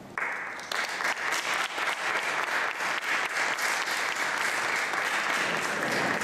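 Audience applauding: many hands clapping, breaking out suddenly at the start and keeping up steadily.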